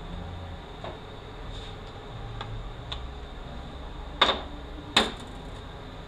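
Light clicks and clinks of hand tools and small parts being handled on a workbench, with two sharp, louder knocks about four and five seconds in, over a low steady hum.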